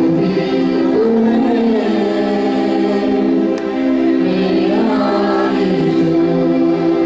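Christian worship song: voices singing together over held instrumental chords.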